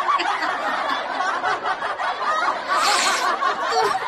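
Two women laughing hard, with a brighter, breathy burst of laughter about three seconds in.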